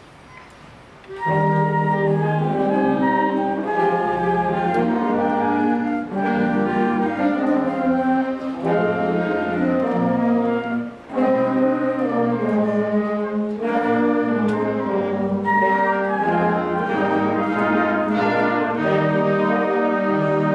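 Combined 7th and 8th grade school concert band playing a musical interlude, coming in about a second in after a moment of quiet, with a few short breaths between phrases.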